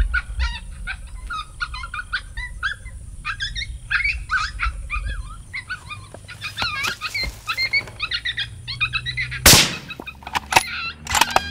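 Electronic predator call playing rapid coyote yips and whines, then a single loud rifle shot about nine and a half seconds in, followed by a few sharp clicks.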